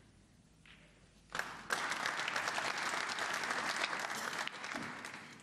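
Audience applauding. It starts about a second and a half in, holds steady for a few seconds and dies away near the end.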